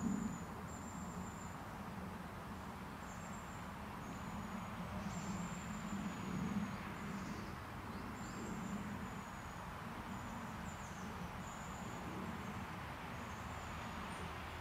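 Woodland outdoor ambience: small birds giving short, thin, very high-pitched calls, some falling in pitch, over a steady low background rumble.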